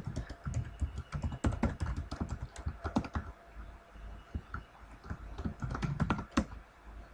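Typing on a computer keyboard: a run of irregular key clicks as short chat messages are typed and sent.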